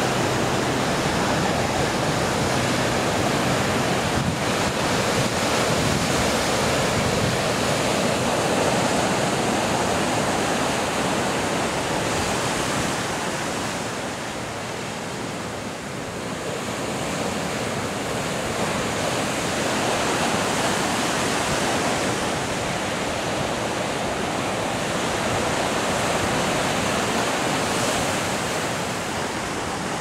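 Sea surf breaking and washing over a rocky shore: a continuous rushing wash of breakers that eases briefly about halfway through, then builds again.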